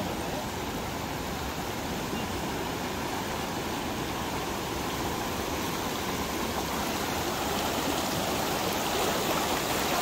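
River rapids rushing over rocks: a steady sound of fast-flowing whitewater that grows a little louder toward the end.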